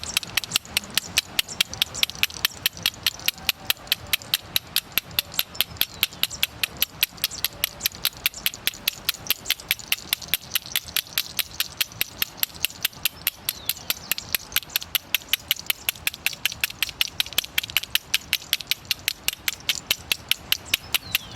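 A hand rattle shaken in a steady, even rhythm, about four to five sharp shakes a second.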